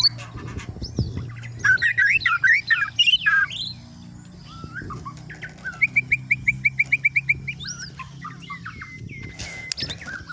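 Borneo white-rumped shama (murai batu) singing, working lovebird and canary calls into its song. A loud burst of quick, varied whistled phrases comes first, then a rapid trill of about a dozen even notes around two-thirds through, then scattered calls.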